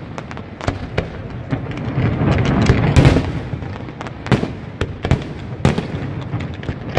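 Fireworks display: a rapid string of sharp bangs and crackles over a continuous rumble of bursts, loudest about three seconds in.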